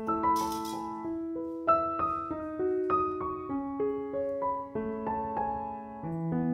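Background piano music: a calm melody of single held notes, a new note about every half second.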